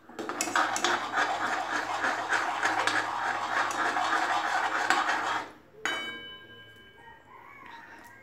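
Metal spoon stirring thick besan batter fast in a metal kadhai, scraping and clinking against the pan in a quick even rhythm for about five seconds to break up the gram-flour lumps. Shortly after the stirring stops, the spoon knocks once against the pan with a brief metallic ring.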